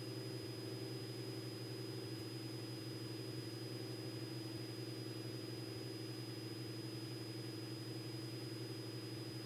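Cessna 206 Stationair's piston engine and propeller droning steadily at climb power, heard faintly through the cockpit intercom, with a thin steady high whine above it.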